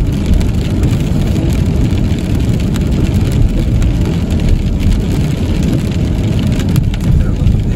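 Steady low rumble of a car driving on a wet road, heard from inside the cabin, with rain striking the windshield.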